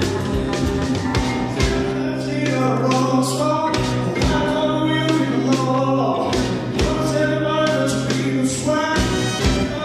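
Live rock and roll band playing, with singing over sustained bass and regular drum hits.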